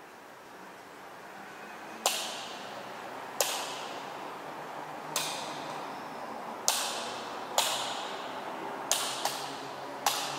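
Light switches clicking off one after another: eight sharp clicks at uneven gaps of one to two seconds, each ringing out in a long echo through a large empty hall, over a faint low hum.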